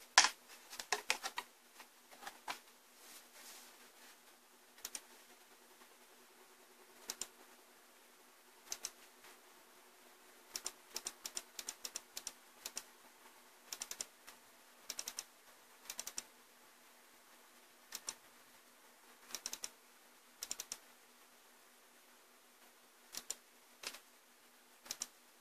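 A printed circuit board knocking and clattering as it is set into a test fixture in the first couple of seconds, then sharp clicks, singly and in quick pairs every second or two, from operating the computer that runs the board tester, over a faint steady hum.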